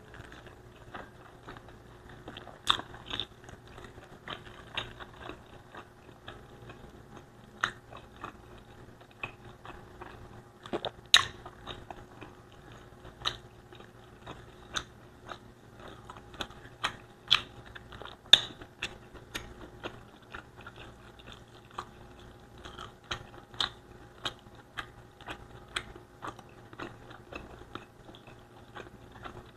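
Close-miked chewing and mouth sounds of a person eating Bicol Express with rice, with sharp, irregular clicks and smacks every second or so. A faint steady hum runs underneath.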